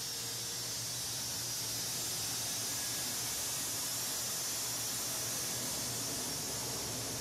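Shot blasting machine running: a steady hiss of blasting with a low electric hum underneath.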